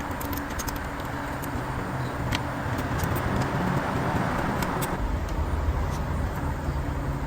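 Honda Civic B-series four-cylinder engine idling, with a steady hiss and scattered light clicks. About five seconds in, the low engine note grows stronger.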